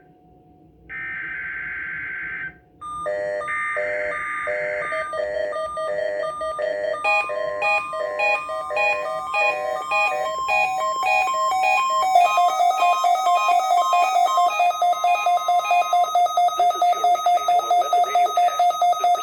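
The last two bursts of an Emergency Alert System SAME data header: short screeching digital tone bursts with a brief gap between them, from a NOAA Weather Radio required weekly test. A weather radio receiver's electronic alert then beeps in several pitches, quickening until it settles into a rapid steady beeping, and the broadcast voice begins faintly underneath near the end.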